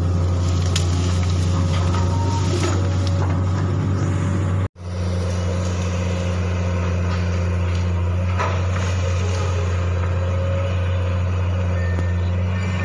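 Komatsu long-reach excavator's diesel engine running steadily under work, a deep constant drone. The sound cuts out for an instant nearly five seconds in, then the drone carries on.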